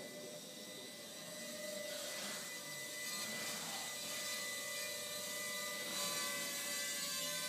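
Walkera Ladybird V2 micro quadcopter's small electric motors and propellers whirring in flight, a whine of several steady pitches that shift slightly as the throttle changes.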